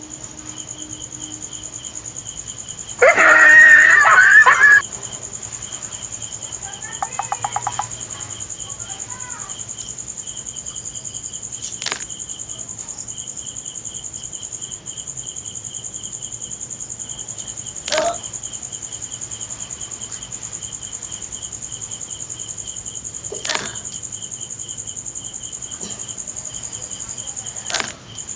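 Insects chirping steadily: a fast pulsing trill with a high steady whine above it. About three seconds in, a loud noisy burst lasts nearly two seconds, and four sharp clicks come at intervals later on.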